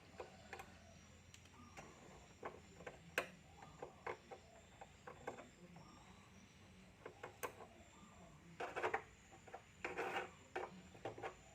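Scattered light clicks and taps, with a couple of short scraping sounds near the end, from hand work with a soldering iron and small tools on an amplifier circuit board while a switch is soldered in.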